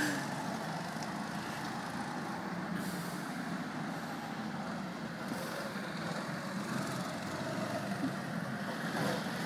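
250 cc go-kart engines lapping the track at a distance, heard as a steady mixed drone that grows a little louder near the end as a kart comes closer.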